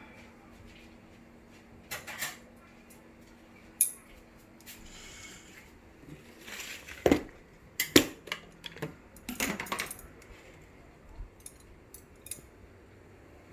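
Utensils clinking and clattering against a ramen bowl in scattered knocks, with a cluster of louder clatters in the middle.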